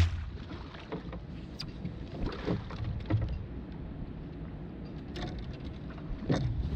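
Water splashing and lapping around a landing net as a hooked king salmon is brought alongside the boat, over a low wind rumble on the microphone, with a few short splashes and knocks.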